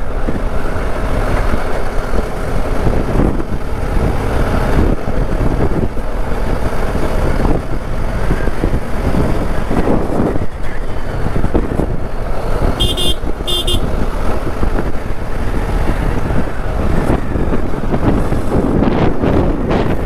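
Motorcycle engine running as the bike is ridden along, with steady road and wind noise. A horn beeps twice in quick succession about two-thirds of the way through.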